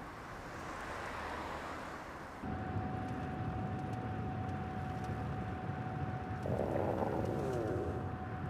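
Steady drone of a moving car heard from inside, with a hungry stomach growling in a short wobbling rumble about six and a half seconds in.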